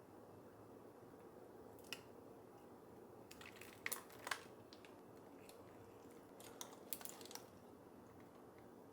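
Faint room tone with a few scattered small clicks and crunches: one about two seconds in, a short cluster around four seconds, and another near seven seconds.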